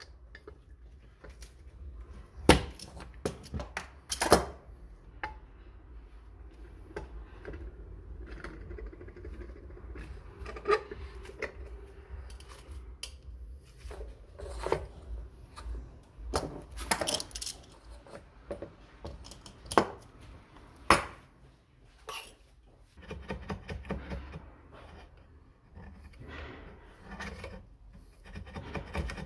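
Steel knife blade scraping over a Triumph Bonneville's aluminium engine side cover, with irregular scraping strokes broken by sharp metallic clinks and knocks of the tool against the cover and the bench, several of them loud.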